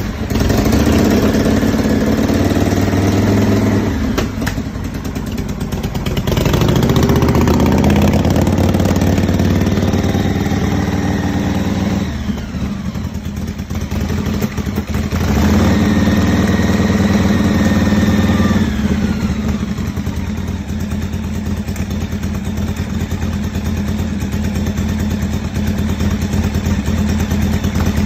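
TP Engineering 121-cubic-inch V-twin of a custom Exile chopper running and revved through its internal twist-grip throttle: it rises and falls a few times, then settles to a lower, steady speed for the last several seconds.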